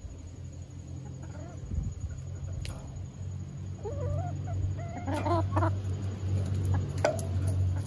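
Hens clucking close by, with short wavering calls starting about four seconds in, over a steady low hum.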